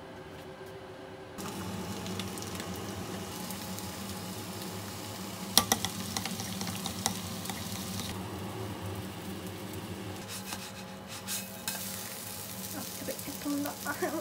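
Kitchen cooking sounds: okonomiyaki sizzling in a frying pan, and a utensil stirring gochujang-mayonnaise sauce in a glass bowl. A few sharp clinks of a utensil against the dish come about five to seven seconds in.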